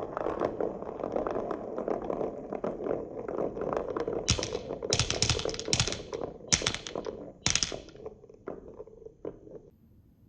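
Glass marbles rolling down a wooden wave-slope marble run, a continuous rattling rumble full of small clicks. Around the middle come five loud, sharp clacks as marbles strike the wood, then a few lighter clicks before the rolling stops near the end.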